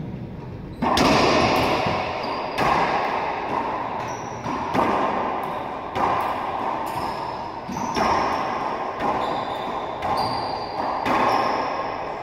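Racquetball rally: a hollow rubber ball struck by racquets and smacking off the court walls about once a second, each hit booming with a long echo.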